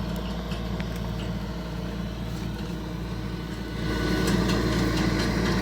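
A vehicle engine running steadily at low revs, growing louder about four seconds in.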